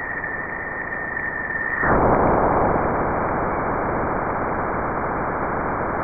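Plasma-wave data from NASA's Juno Waves instrument, converted to sound, as the spacecraft crosses Jupiter's bow shock. A steady high tone from the upstream plasma oscillations gives way abruptly, about two seconds in, to a loud, dense noise: the turbulence at the bow shock.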